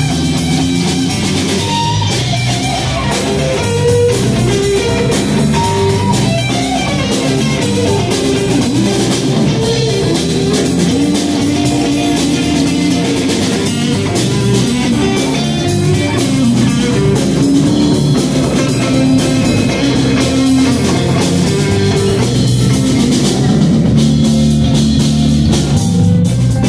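Live blues-rock band playing: electric guitars over a drum kit and bass guitar.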